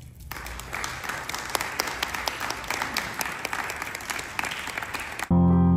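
Audience applauding for about five seconds. Near the end the clapping cuts off abruptly and a held low chord on a keyboard begins.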